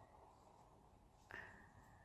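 Near silence: room tone, with one faint short high-pitched tone about a second and a half in.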